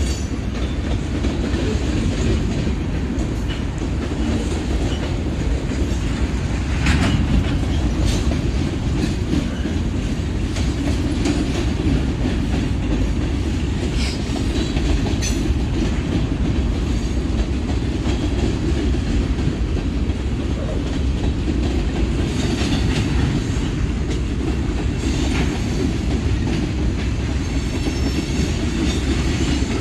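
Freight cars of a Norfolk Southern manifest train rolling past, a steady rumble with wheels clacking over rail joints and occasional faint squeals.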